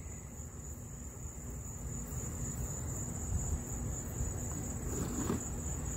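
Insects trilling steadily in one continuous high-pitched drone.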